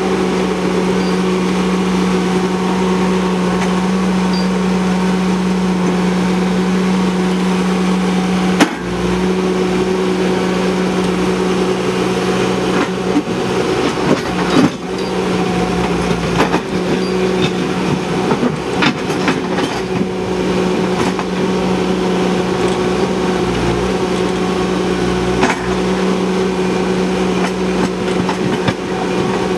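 Ditch Witch SK900 mini skid steer's engine running steadily under load while it digs, with intermittent clanks and knocks as the bucket works into rocky soil. The sharpest knock comes about nine seconds in.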